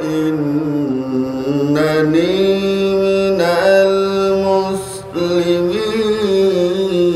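A man reciting the Qur'an in the melodic tilawah style through a microphone, holding long drawn-out notes that slowly rise and fall. There is a short break about five seconds in, then the voice picks up again.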